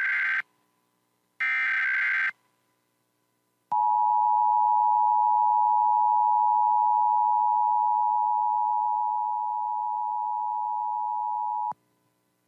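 Emergency Alert System tones: the end of one SAME header data burst and then another short burst of digital data tones. After a pause of about a second and a half comes the steady two-tone EAS attention signal, which runs about eight seconds and cuts off abruptly near the end.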